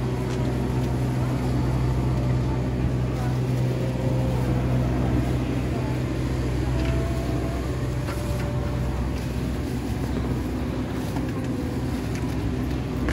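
Steady low hum of an airliner cabin's ventilation and air conditioning while the aircraft is parked for boarding, with a few faint voices of passengers in the aisle.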